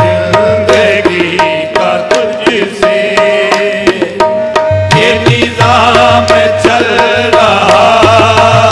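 Qawwali music: tabla strokes over a held harmonium note, with a fuller wavering melody line swelling in about five seconds in.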